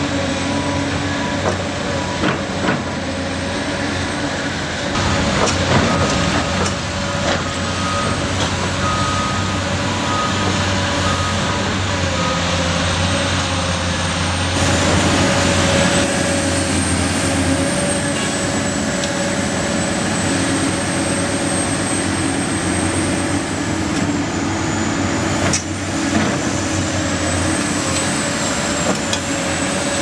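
Heavy diesel engines of Cat hydraulic excavators and a dump truck running steadily, with an occasional knock. A short run of beeps from a reversing alarm comes about a third of the way in.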